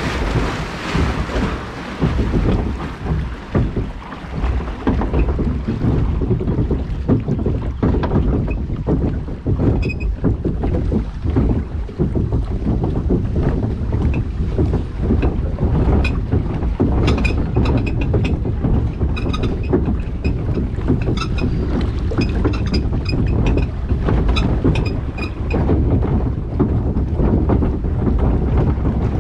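Water-ride boat gliding along the log flume channel, the moving water drowned by heavy wind buffeting on the microphone. Short high chirps come and go about ten seconds in and through the middle stretch.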